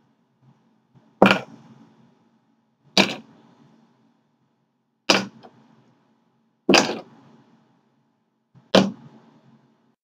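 Small red blocks dropped one at a time into a metal pan: five sharp clanks about two seconds apart, each ringing briefly.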